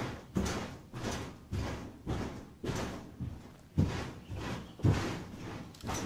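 Footsteps on an old wooden floor: heavy thuds about twice a second at a steady walking pace, each with a short ringing tail from the boards.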